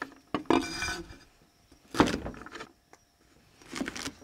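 A knife and green beans on a chopping board: a few separate knocks and a scrape as the ends are trimmed off the beans and the beans are gathered up.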